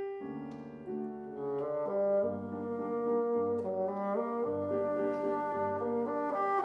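Bassoon playing a melodic line in sustained, stepping notes, accompanied by piano.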